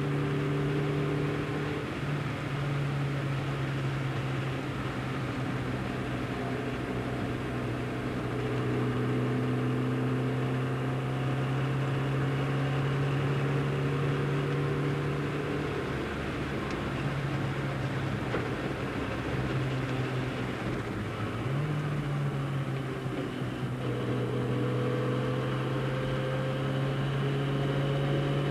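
The 1275cc A-series four-cylinder engine of a tuned 1969 Austin-Healey Sprite (Dellorto carburettor, large-bore exhaust), heard from inside the small open cabin, pulling hard around a wet circuit. The note holds steady for long stretches, then drops and climbs again a few times with the gear changes and throttle lifts, over a constant hiss of tyre spray.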